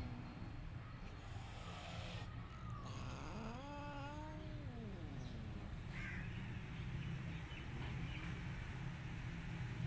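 A cat meows once, a drawn-out call of about a second that rises and then falls in pitch, a little before the middle, over a steady low background hum.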